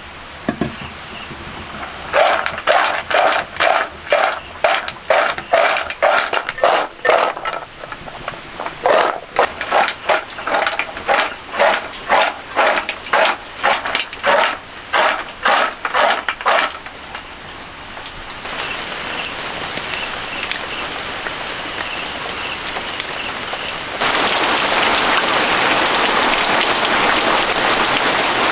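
Crisp fried kurkure sticks tossed by hand in a steel bowl, a rattling shake about twice a second. Steady rain then takes over, growing louder for the last few seconds.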